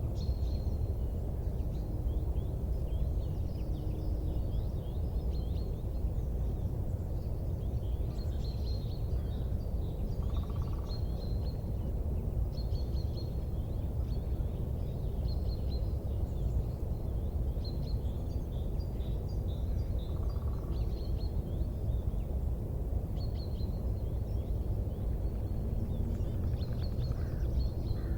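Small birds chirping in short, high-pitched runs again and again over a steady low rumble.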